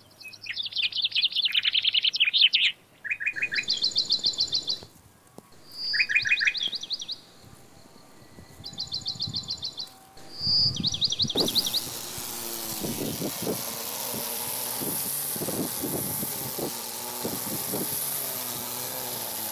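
A songbird sings short trilled phrases of quickly repeated notes, a second or two apart, some opening with a single clear note. About eleven seconds in, this gives way to the steady whirring hiss of an AL-KO GT 2025 cordless string trimmer cutting grass.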